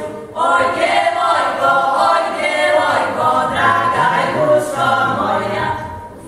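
Folk singing group, women's voices leading, singing a Serbian folk song unaccompanied. The lines are long and drawn out, with a brief break in the singing just after the start.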